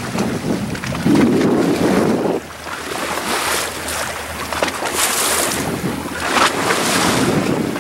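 Wind buffeting the microphone over the rush and splash of sea water along a boat's hull, strongest in the first couple of seconds, then hissing swells of spray.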